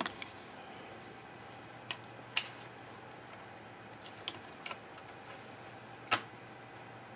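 Scattered sharp clicks and taps of a disassembled netbook's plastic case and circuit board being handled, about five over several seconds, the loudest about two and a half seconds in. A faint steady hum lies underneath.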